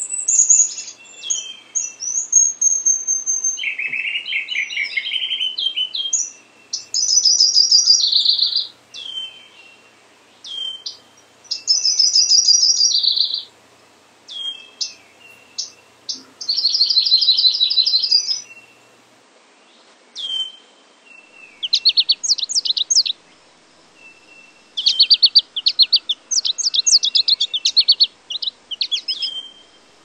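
Recorded songs of several small songbirds heard in turn. High, thin notes come first, then trilled phrases of about two seconds each, repeated with pauses, and fast chattering phrases near the end.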